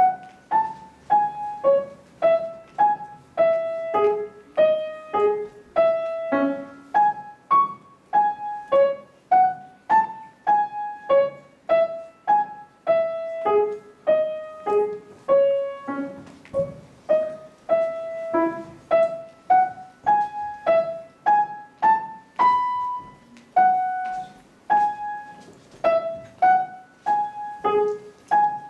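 Grand piano playing a simple melody of single struck notes, about two a second, each left to fade, mostly in the middle-upper register with an occasional lower note.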